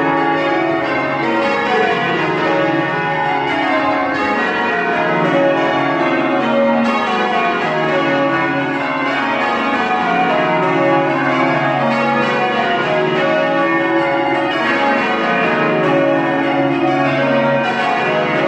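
Sheffield Cathedral's Whitechapel-cast ring of twelve church bells ringing rounds: each bell strikes in turn from highest to lowest, repeating steadily row after row without a break.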